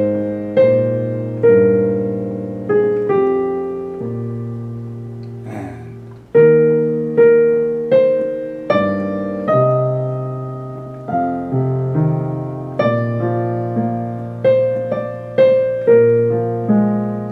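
Casio Privia digital piano playing a slow tune in chords, a melody over a bass line, with a new note or chord struck about once a second and each one fading away.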